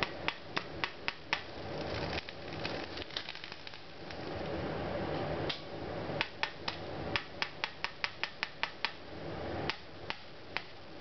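Sharp, irregular electrical snaps from an overvolted paper shredder universal motor arcing at its brushes, a few a second, over a steady background noise.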